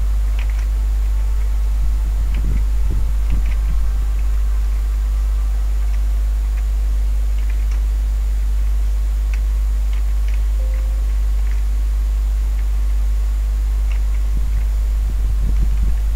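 Steady low electrical hum with a faint high-pitched whine above it, dotted with scattered soft clicks.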